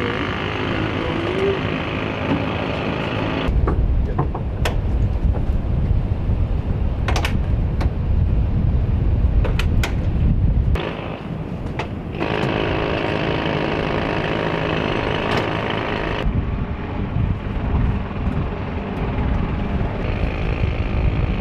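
Loud, steady engine and machinery noise with scattered sharp metallic clicks. The sound changes abruptly a few times, heavier and lower for a stretch in the middle.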